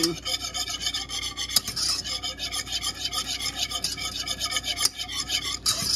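Wire whisk beating a thin hollandaise of egg yolks and melted butter in a saucepan, rapid and steady, its wires scraping the pan. This is the constant whisking over low heat that keeps the yolks from scrambling while the sauce comes together.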